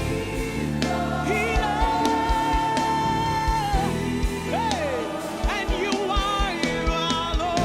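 Gospel worship music: a band with a steady drum beat and sustained chords, with a voice singing held and gliding notes but no clear words.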